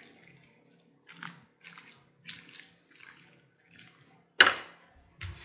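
A fork stirring mayonnaise-dressed potato salad in a glass bowl: a run of soft, wet squishing strokes about twice a second, then two sharp knocks near the end, the louder first.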